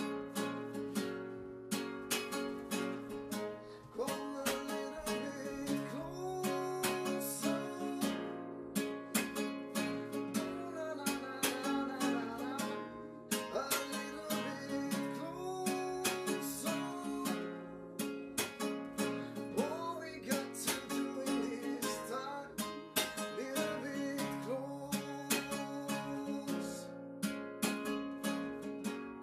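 Acoustic guitar playing an instrumental passage of a song: steadily plucked chords over a stepping bass line.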